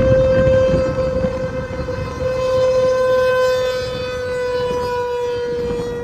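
Outdoor tornado warning siren sounding a steady tone with many overtones: the alert for a tornado warning. Its pitch sags slightly and it grows quieter over the last few seconds.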